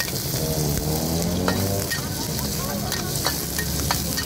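Diced onion sizzling in hot oil in a wok while a metal spatula stirs it, scraping and clinking against the wok's iron side every half second or so from about a second and a half in.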